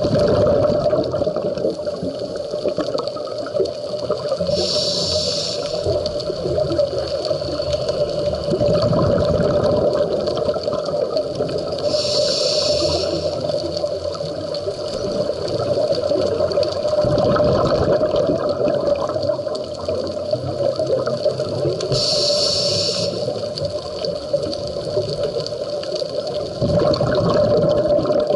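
Scuba diver's breathing heard underwater: a short hiss from the regulator on each breath in, three times about nine seconds apart, with rumbling rushes of exhaled bubbles between them, over a steady low hum.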